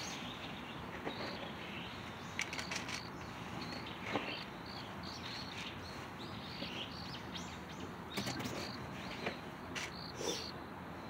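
Quiet outdoor ambience with a steady series of short, high chirps about twice a second from a small bird or insect, and a few brief rustles of leaves and grass.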